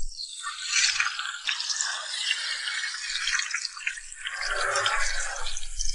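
Green onions, Chinese leeks and onion frying in hot melted beef tallow: a dense crackling sizzle as the aromatics fry until dry and fragrant.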